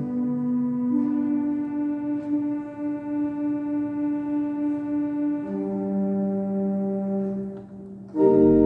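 Pipe organ playing slow, sustained chords, with the held notes changing only a few times. Just before the end a much louder full chord comes in with deep pedal bass.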